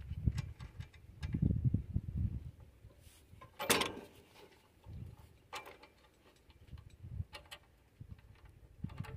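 Scattered light metal clicks and knocks from a washer and bolt being fitted by hand into a steel bracket, with one sharper clank about four seconds in and low dull bumps of handling near the start.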